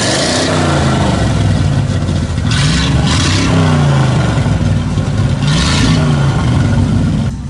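Classic sports car engine revved in repeated throttle blips, about three times, each rising sharply and falling back, with a loud exhaust crackle at each peak.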